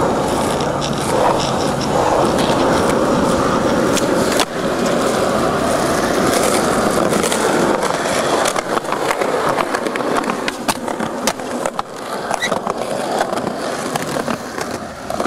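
Skateboard wheels rolling over concrete with a steady rumble. From about halfway in, sharp clacks and knocks of the board hitting the ground break into the rolling.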